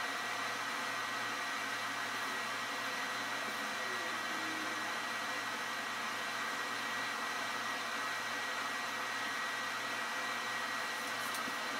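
Steady machine hiss with a thin, even high whine and a low hum under it, unchanging in level.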